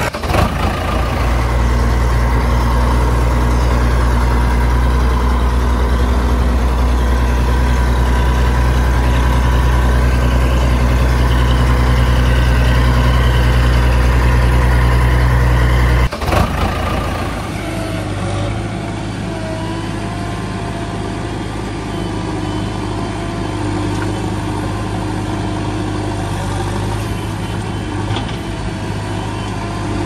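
Vehicle engine running steadily, a dubbed engine sound laid over non-motorised die-cast toy vehicles. About halfway through it cuts abruptly to a different, slightly quieter engine sound.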